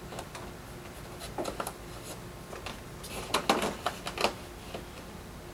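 Flexible reflector sheet rustling and clicking as it is pressed and slid by hand into the groove of a ceiling light fixture, with a cluster of louder scrapes about three and a half seconds in.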